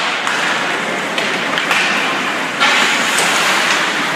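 Ice hockey game noise in a rink: a steady hiss of skates on the ice and the arena, broken by several sharp clacks of sticks and puck. The loudest clack comes about two and a half seconds in.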